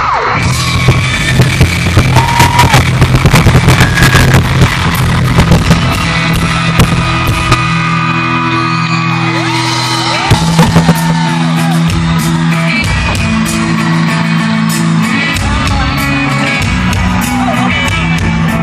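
Live rock band playing loud through an arena sound system: drums, bass and electric guitar, with singing and shouting over it.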